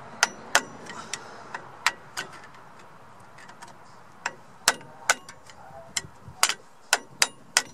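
Light hammer taps on the end of a screwdriver, driving the retaining clip onto a drum brake's parking brake lever. There are about fifteen sharp, uneven taps, with a pause of about two seconds in the middle.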